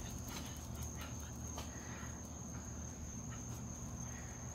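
Crickets chirring in one steady high-pitched tone, with a low steady hum beneath and a few faint ticks.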